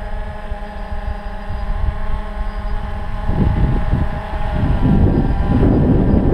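DJI Phantom 2 quadcopter's motors and propellers humming steadily as it descends to land. About three seconds in, gusty wind noise on the microphone comes in and grows louder than the hum.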